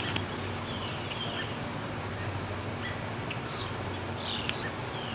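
A few short, falling bird chirps, spaced out, over a steady low hum and outdoor background noise.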